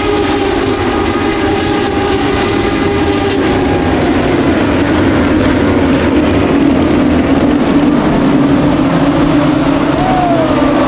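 Racing motorcycle engines running at high revs on the circuit, a steady loud drone of several pitches. Near the end one bike passes and its pitch falls away.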